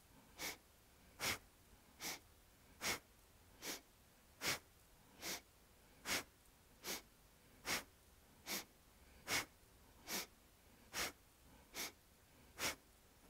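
A person breathing sharply and rhythmically in a yoga breathing exercise, a little over one breath a second, alternating a louder and a softer stroke as the inhale and the exhale, each timed to a seated twist of the torso to one side and then the other.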